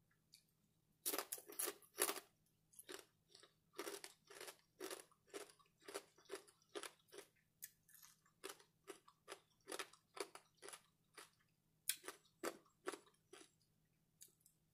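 Crispy bacon being bitten and chewed close to the microphone: a few loud crunching bites about a second in, then a steady run of crunchy chews at about two or three a second.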